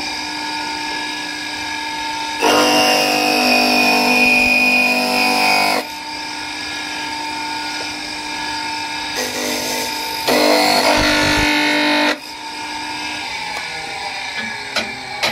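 Bench electric motor spinning a sanding drum on its shaft, running with a steady whine. Twice a wooden spatula is pressed against the drum and the sound gets louder and rougher, first for about three seconds, then for about two to three seconds. A few short clicks near the end.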